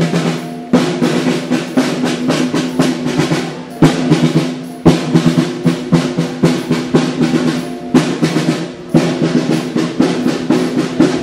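Snare drums playing rolls and marching beats, loud and continuous, with a steady low tone held underneath.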